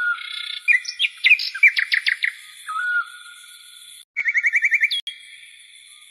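Small birds chirping: a quick run of sharp chirps, then a fast even trill about four seconds in. Under them runs a steady high whine, and a short low whistle comes at the start and again about three seconds in.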